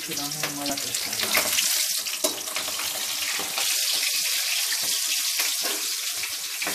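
Hot oil sizzling and crackling in an aluminium kadai as green chillies and spice seeds fry, stirred with a metal spatula. The sizzle grows a little louder partway through.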